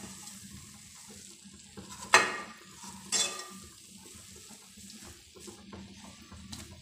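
A cooking spoon stirring and scraping matar pulao in a metal kadhai, the rice now dry with its water fully absorbed. The spoon knocks sharply against the pan twice, about two and three seconds in.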